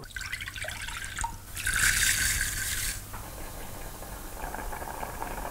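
Water poured from a glass into a saucepan of rice, splashing and trickling, loudest for about a second and a half. It is followed by a quieter steady hiss as the rice simmers in the pan.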